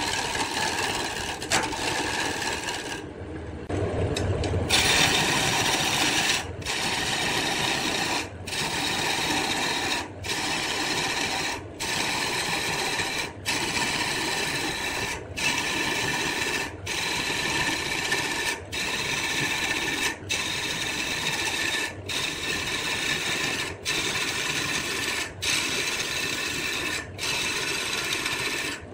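Rasping of wood being worked on a wood lathe, a steady scraping noise broken by short gaps roughly every second and a half to two seconds, with a longer break in the hiss about three seconds in.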